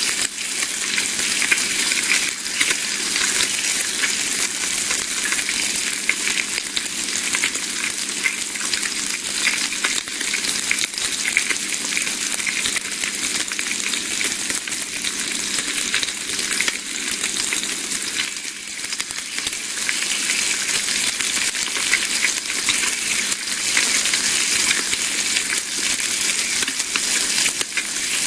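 Bacon sizzling and frying in a pan: a steady, dense hiss with many fine crackles and pops.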